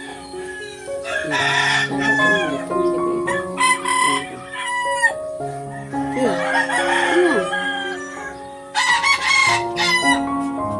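Background music with long held notes, with gliding animal calls over it, the loudest about six and nine seconds in.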